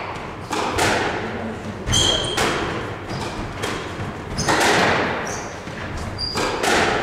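Squash rally: the hard rubber ball struck by rackets and hitting the court walls, a sharp echoing knock about every second. Short sneaker squeaks on the wooden floor between shots.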